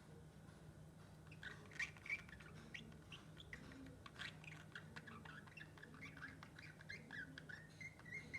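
Pet lovebird chattering in a rapid run of short, high chirps and squeaks that starts about a second in, with a few sharper clicks among them.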